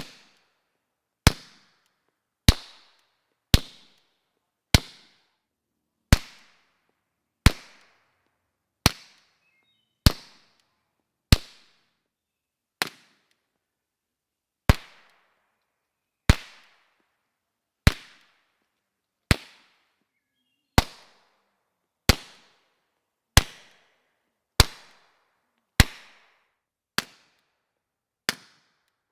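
Suppressed 9mm pistol shots from a CZ 75B fitted with short 9mm suppressors run wet, fired singly about every second and a half, around twenty shots, each a sharp report with a short echoing tail.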